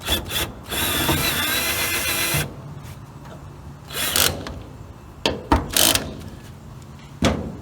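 Power drill running for about two seconds, driving a self-tapping screw into the car's sheet-metal body, followed by several short knocks and clacks.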